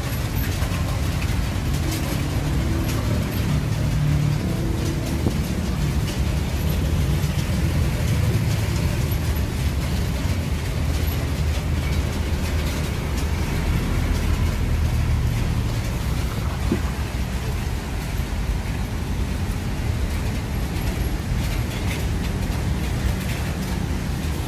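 A motor vehicle engine running steadily at low revs, a low-pitched engine note.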